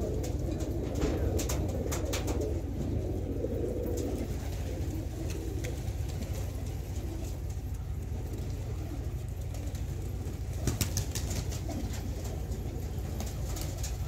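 A flock of domestic pigeons cooing together in a continuous low murmur, with scattered sharp clicks and a cluster of them about eleven seconds in, and a few wing flaps as birds take off.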